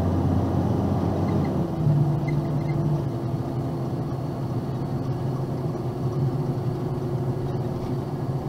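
Box truck running down the road: a steady low engine drone with road rumble, its pitch stepping up about two seconds in.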